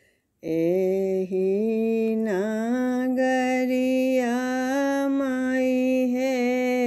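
A woman singing a Bajjika lagan folk song solo, with no accompaniment: one long drawn-out sung phrase, starting about half a second in, with slow pitch bends and a quick dip near the middle.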